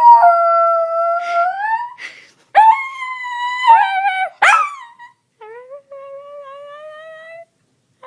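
A dog howling in three long, drawn-out calls with whining breaks, the last one quieter.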